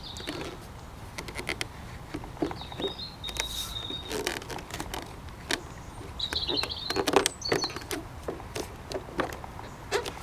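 Irregular light clicks and knocks of model aircraft parts being handled and slotted together as a wing is fitted, with a busier cluster about seven seconds in. A few short high chirps sound in between.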